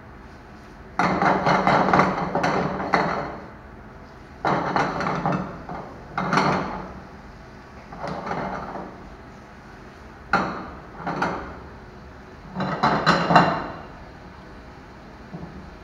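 Stainless steel frying pans shaken and slid back and forth on a gas range's burner grates to toss sautéing vegetables: repeated bursts of metal rattling and scraping, each lasting up to two seconds, over a steady background hiss.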